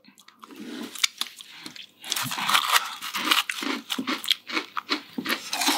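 Close-miked chewing of crunchy white-chocolate-coated cereal loops: a run of irregular crunches, thicker from about two seconds in.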